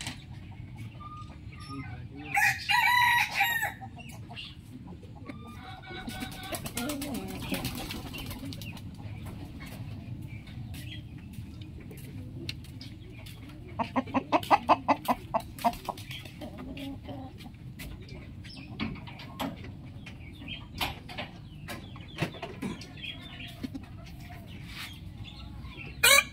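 Roosters crowing: one loud crow lasting about a second and a half a couple of seconds in, a fainter call a few seconds later, and a rapid series of about ten short calls around the middle. Another loud crow starts right at the end, over a steady low background hum with scattered clicks.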